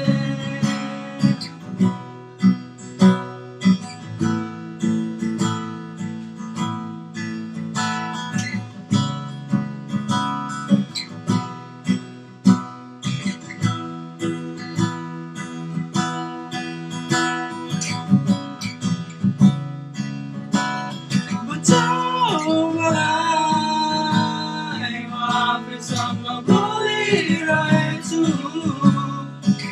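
Acoustic guitar strummed in a steady rhythm, with a voice singing along from about two-thirds of the way in.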